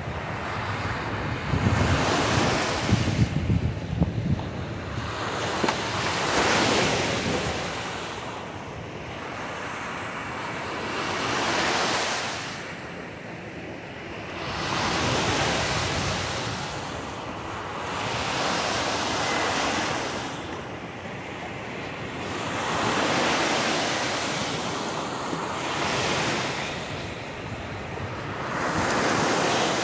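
Small shore-break waves breaking and washing up a sandy beach, the surf swelling and fading every few seconds. Wind rumbles on the microphone, most in the first few seconds.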